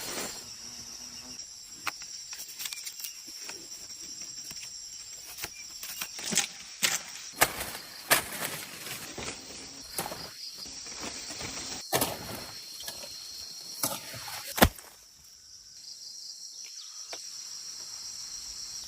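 Steady high chirring of insects, with scattered sharp clicks and knocks over it.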